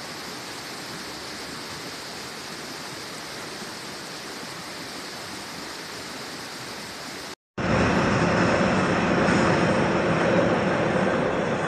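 White water rushing over rocks, a steady even rush. About seven seconds in it cuts off abruptly and a louder, lower steady rushing noise takes over.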